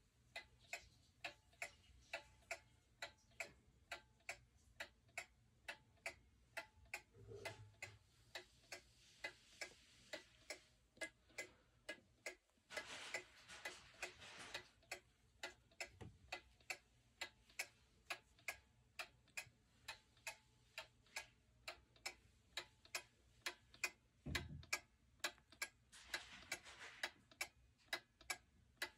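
Antique pendulum wall clock ticking with an even, steady tick-tock. A soft rustle is heard twice, along with a couple of faint low thumps.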